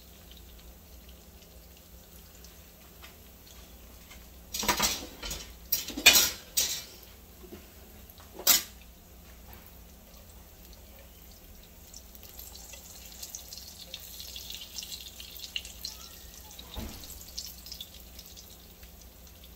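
Tortilla wedges frying in shallow oil in a frying pan, a faint sizzle that grows a little louder in the second half. Several sharp clicks of a metal fork against the pan come in a cluster about five to eight seconds in as the pieces are moved.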